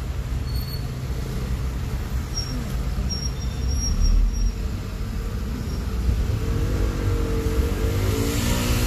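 A bus running on the road, heard from inside the cabin: a steady low rumble of engine and tyres, with a brief louder thump about four seconds in.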